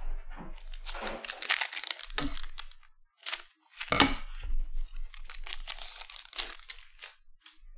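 A 2020-21 Select Basketball hobby pack's foil wrapper being torn open and crinkled as the cards are pulled out: irregular crackling rustles, with a sharp crack about four seconds in.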